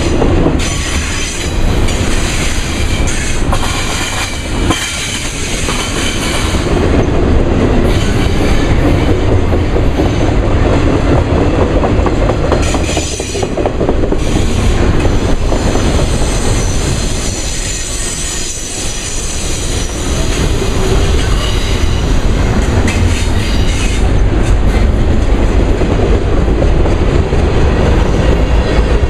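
Union Pacific intermodal freight train rolling past at low speed: a steady, loud rumble of steel wheels on rail, with clacks over the rail joints and occasional wheel squeal.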